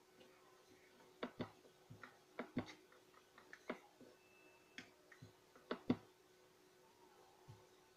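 Wooden rolling pin knocking and clicking against a wooden rolling board as paratha dough is rolled out: faint, irregular light knocks, some in quick pairs.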